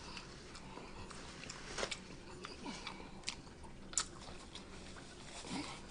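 Faint close-up chewing of a person eating, with wet mouth clicks and a few sharper smacks, the sharpest about four seconds in.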